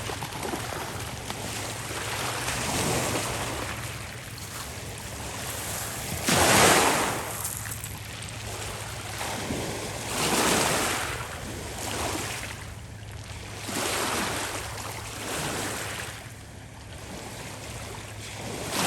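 Small lake waves washing onto the shore in repeated swells every few seconds, the strongest about six seconds in, over a steady hiss of wind and water.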